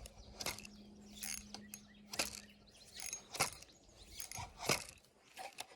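Fishing reel clicking and ticking irregularly as the line is pulled against a snag in the creek.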